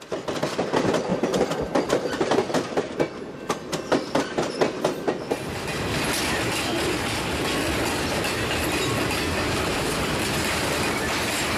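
Freight train cars rolling past, their wheels clicking sharply over rail joints for about the first five seconds, then a steady rolling rumble.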